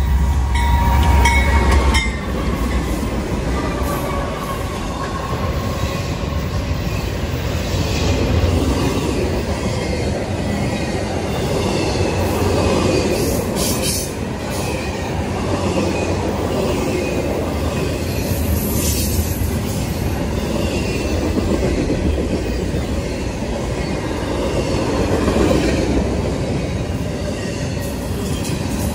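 Diesel freight train passing close by: the locomotives' horn tails off and their engines rumble past in the first two seconds. Then double-stack container cars roll by with a steady, loud wheel rumble, clicking over the rail, and a brief wheel squeal about halfway through.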